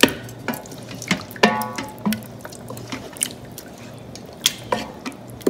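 Wooden spoon stirring spinach into a meat curry in an Instant Pot's metal inner pot: wet squelching of gravy and leaves, with a string of sharp knocks as the spoon hits the pot and one brief squeak about one and a half seconds in.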